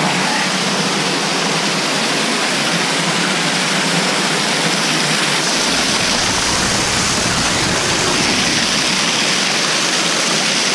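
A waterfall pouring onto rocks close by: a loud, steady rush of water. A deeper rumble joins in about halfway through.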